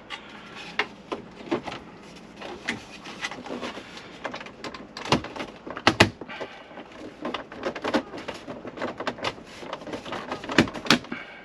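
Plastic dashboard trim and the hazard-light switch being handled and fitted back into a van dash: irregular plastic clicks and knocks, the sharpest about six seconds in and again near the end.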